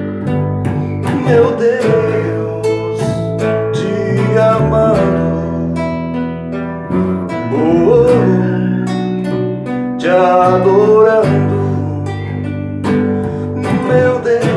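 Music: an acoustic guitar strummed steadily, with a melody line that rises and falls over it several times.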